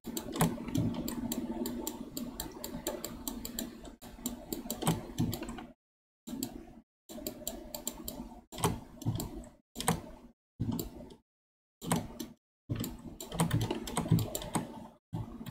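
Quick runs of clicks and taps from a computer keyboard and pointing device on a desk, with some dull low knocks among them. The sound cuts off abruptly to dead silence several times.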